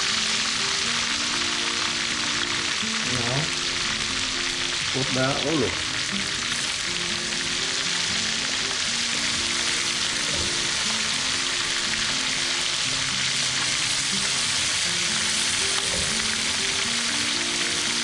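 Squid pieces and garlic frying in hot oil in a wok: a steady sizzle.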